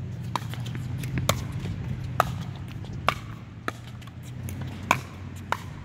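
Tennis balls popping off rackets and bouncing on a hard court, seven sharp pops spaced roughly a second apart over a steady low hum.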